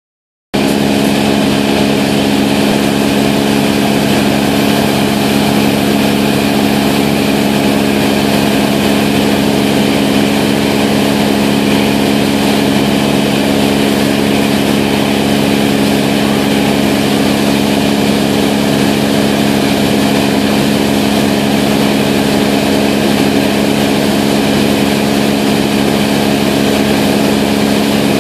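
A boat's engine running steadily with a loud, even hum, over a constant rushing hiss of water spray. It starts about half a second in and does not change.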